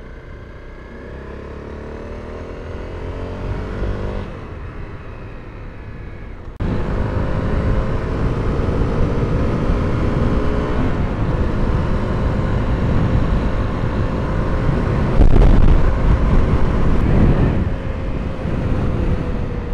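Honda CRF250L's single-cylinder four-stroke engine pulling a rider along, pitch rising as it accelerates with a shift about four seconds in. About six and a half seconds in, heavy wind rush on the helmet microphone suddenly gets much louder over the steady engine note, and it gusts louder for a couple of seconds near the end.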